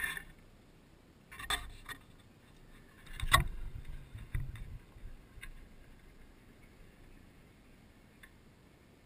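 A few faint, scattered knocks and clicks over a quiet background, the loudest about three seconds in.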